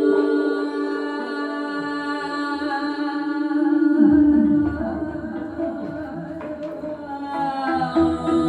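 Free improvised music built from long, held notes, one steady note carrying through much of it; about four seconds in, low sliding pitches fall away beneath it.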